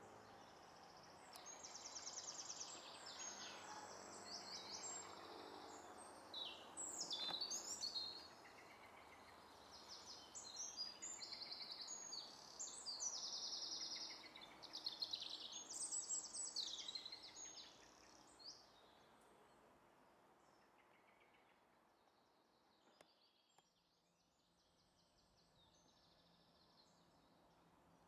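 Small songbirds singing: a run of quick, high, trilled phrases, one after another, that dies away about two-thirds of the way through, leaving only a faint steady hiss.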